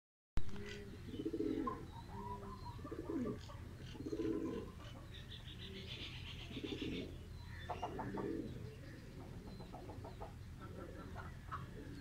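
Domestic pigeons cooing, a low rolling coo repeated every second or two, with fainter high-pitched chirps from other small birds in between.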